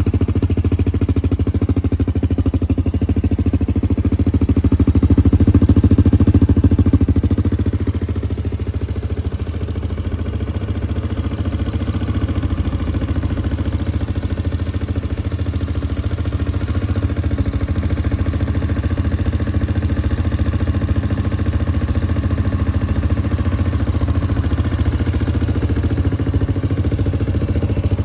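ASIX Fourcraft 250 quad's four-stroke engine idling steadily, a little louder for a few seconds near the start before settling back.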